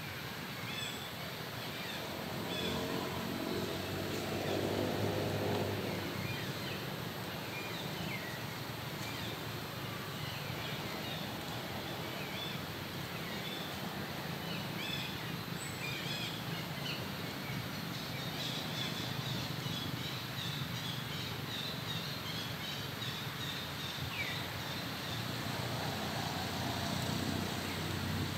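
Outdoor ambience: small birds chirping on and off over a steady low hum, with an engine drone that swells about two seconds in, fades by six seconds, and returns faintly near the end.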